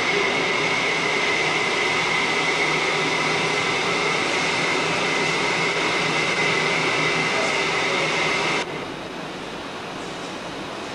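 A machine running with a steady noisy rush and a high whine over a lower hum, cutting off abruptly about two seconds before the end and leaving a faint hiss.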